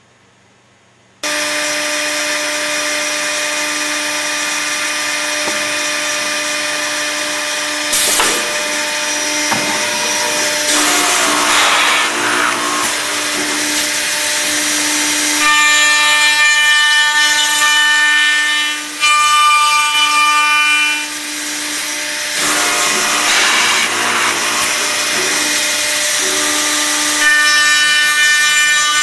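Accu-Systems HVPP hinge-boring machine running a cycle: its motors start abruptly about a second in with a steady hum, then the boring head and router cut into wood. A higher whine comes in and drops out twice.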